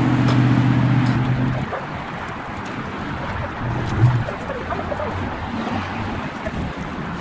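Roadside outdoor noise: a vehicle engine's steady hum for the first second and a half, then a steady rush of traffic and wind on the microphone, with a brief low hum about four seconds in.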